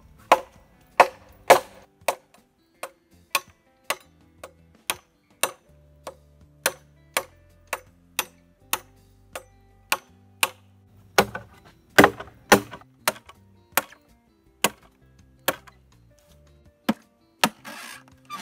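Machete chopping into a thick green bamboo tube: a run of sharp, hard strikes, about two a second, with a brief scrape near the end. Background music plays underneath.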